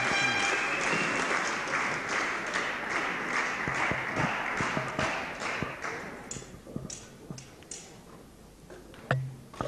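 Spectators applauding, the clapping fading out over about six seconds. Then a table tennis rally: the ball clicks sharply off bat and table several times, with a louder knock near the end.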